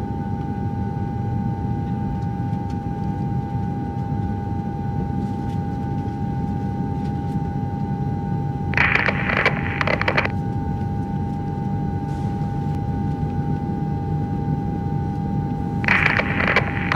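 A steady low rumbling drone with a sustained high hum over it. The drone is broken twice by short bursts of noise, about nine seconds in and again near the end.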